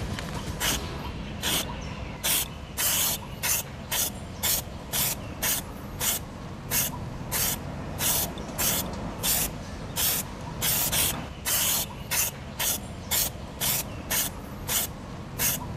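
Aerosol spray-paint can sprayed in a long series of short hissing bursts, about two a second.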